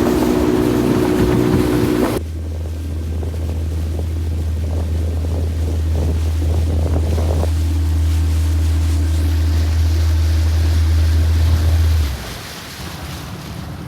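Small boat's outboard motor running steadily as the boat moves across open water, with wind buffeting the microphone. About two seconds in the sound changes abruptly to a heavy low drone, and it drops in level near the end.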